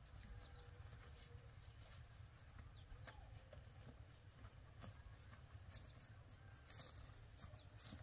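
Near silence: faint outdoor ambience with a steady low rumble and a few faint, scattered chirps.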